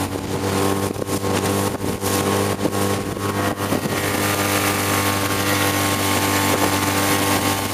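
Outboard motor on a small aluminium boat running steadily at speed, its even engine note under the rush and splash of the wake close behind the stern.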